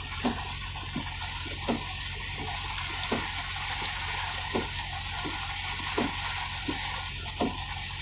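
Rain falling steadily, a continuous hiss with irregular individual drops tapping through it.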